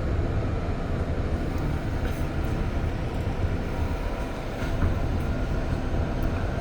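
REM electric light-metro train running between stations, heard from inside the car: a steady low rumble of wheels and motors with a rushing noise over it.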